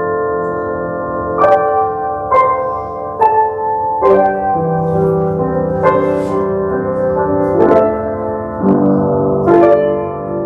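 Handbell choir playing a slow passage: bells struck about once a second, each note ringing on and overlapping the next into sustained chords.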